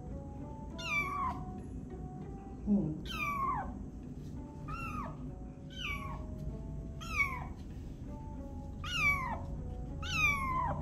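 Tiny kitten meowing again and again, about seven meows a second or two apart, each one falling in pitch, over soft background music.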